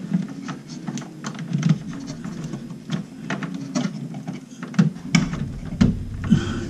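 Irregular small clicks and rattles of plastic and wire as hands fit wiring into the underside of an under-cabinet LED light fixture, over a low handling rumble.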